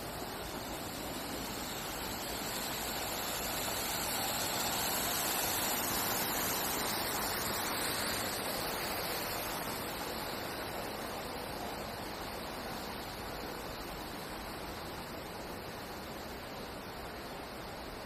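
Steady rush of flowing stream water, swelling louder a few seconds in and then easing back.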